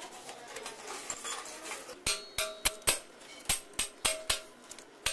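A freshly cast metal deity being struck with a small hand tool to knock off the clay casting mould: after a quiet start, a run of sharp taps about three a second, each leaving a short metallic ring.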